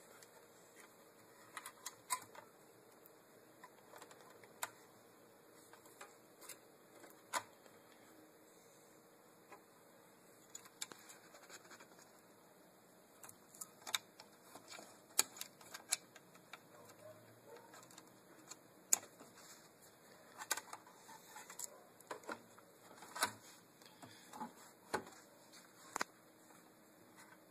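Irregular light clicks and taps of small objects being handled, coming more often in the second half, over a faint steady hum.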